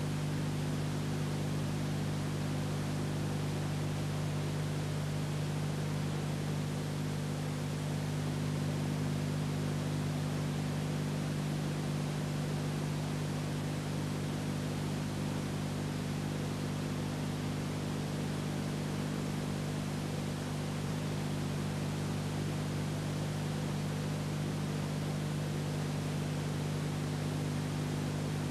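Steady hiss with a low electrical hum and no other sound: the noise floor of an old film's transfer to video.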